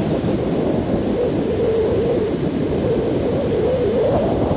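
Wind noise on the microphone over surf breaking and washing up the beach: a steady, loud, low rush.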